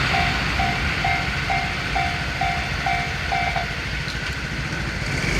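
Japanese railroad crossing bell ringing its two-a-second "kan-kan" tone, stopping a little past halfway through, over the fading rumble of a passing train.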